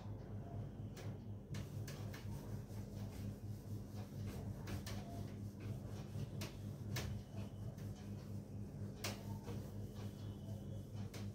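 Whiteboard eraser rubbing and knocking against the board in short, irregular strokes, over a steady low hum.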